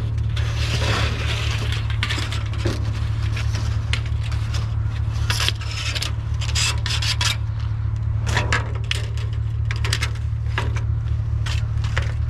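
Scrap metal pieces, taken for aluminum, clattering, clinking and scraping as they are rummaged through in a dumpster, with irregular sharp knocks. A steady low hum runs underneath.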